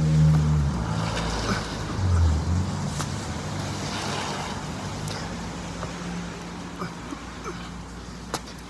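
A motor vehicle's low engine and road rumble, loudest in the first couple of seconds, then easing into a steady quieter drone.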